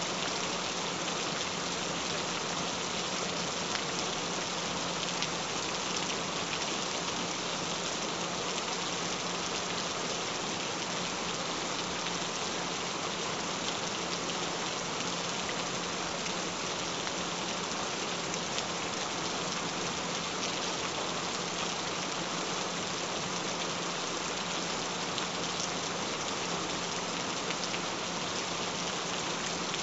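Steady rain falling, an even, unbroken wash of noise with fine scattered drop ticks, and a faint steady low tone underneath.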